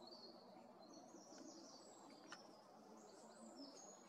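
Faint, high chirping and twittering of small birds in the distance over quiet outdoor ambience, with a couple of soft ticks.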